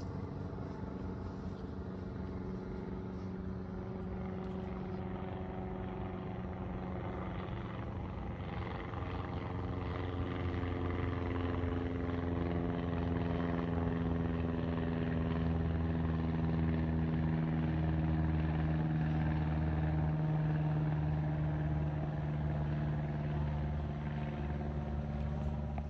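A high-wing single-engine light plane passing overhead, its propeller engine running with a steady note. It grows louder toward the middle of the pass while the pitch slowly drops as the plane goes by.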